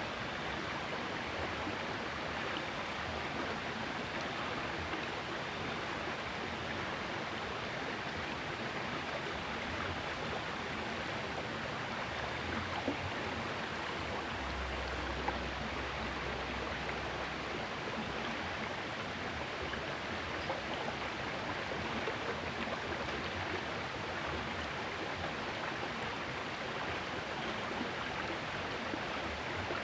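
Small river flowing, a steady rush of running water.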